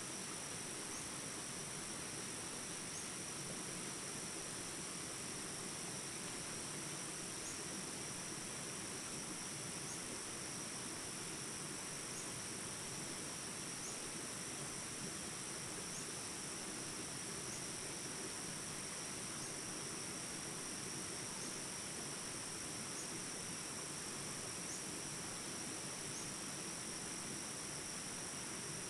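Steady high-pitched chorus of insects, with faint ticks every second or two.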